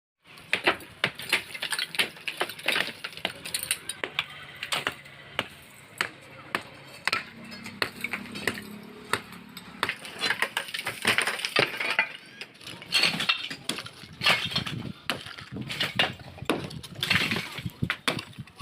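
Building demolition: a rapid, irregular run of sharp knocks, cracks and clinks of breaking masonry and falling debris.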